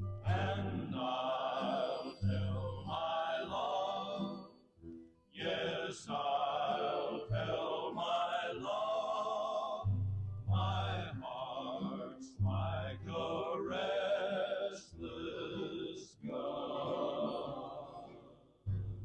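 Western song sung by a male vocal group, with wavering, vibrato-laden phrases separated by short breaks, over a low bass line.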